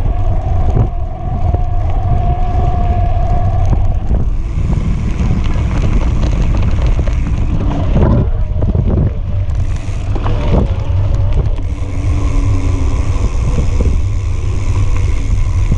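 Wind buffeting the camera microphone over the rumble of a knobby mountain-bike tyre rolling on a dirt trail: a loud, steady low rumble. A steady whine runs through the first four seconds, and two short wavering tones sound later on.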